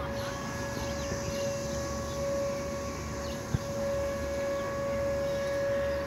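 Whelen WPS 2906 electronic outdoor warning siren sounding a steady, unwavering tone for its routine test, swelling and fading gently in loudness. A single sharp click about halfway through.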